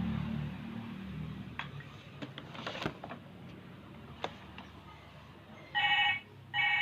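A low motor hum, the excavator running, fades away over the first two or three seconds, with a few scattered clicks. Near the end come two short, loud, high-pitched calls.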